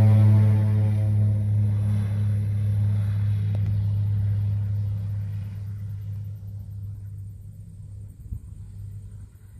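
Air Tractor AT-502B agricultural plane's turboprop engine at takeoff power, a steady low drone that fades as the aircraft runs away on its takeoff roll.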